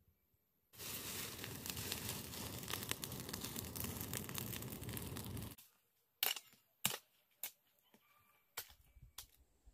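Dense crackling rustle of dry plant material being handled for about five seconds, then a handful of separate sharp snaps.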